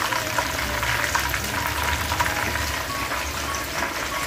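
Chicken pieces deep-frying in a wok of hot oil: a steady, dense sizzle and crackle.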